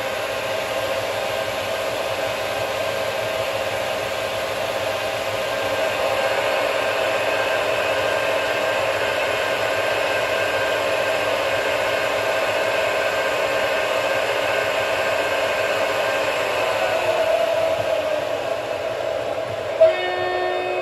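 Sound decoder playing a recorded DR V 100 12 KVD diesel engine running steadily through the G-scale locomotive's speaker, a constant droning whirr. Near the end there is one sharp, short sound, and then a different pitched tone sets in.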